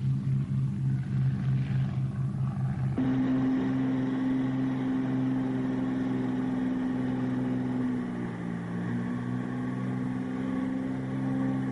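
Twin-engine L-200 Morava light propeller plane in flight, its piston engines droning. For the first three seconds the drone pulses in a fast, throbbing beat. It then changes suddenly to a smoother, steadier drone with a higher note on top, as heard inside the cabin.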